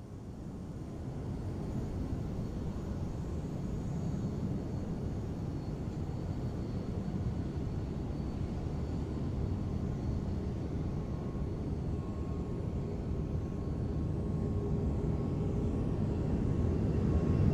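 Jet aircraft passing overhead: a steady low rumble that grows louder toward the end, as a faint higher whine of the engines comes in.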